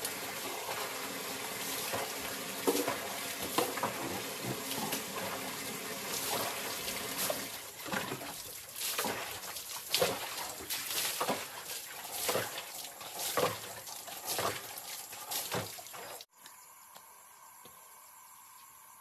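Water running from a tap into a plastic basin, with repeated splashes of water scooped and poured as someone washes. It cuts off suddenly about sixteen seconds in, leaving faint, steady insect chirring.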